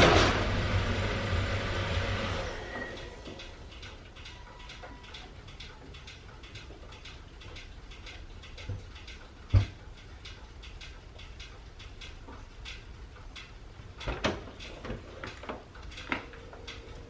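A car's engine and tyres fade away over the first few seconds as the car pulls up and stops. Then it is quiet apart from faint ticking, with a single thump about ten seconds in and a few knocks near the end.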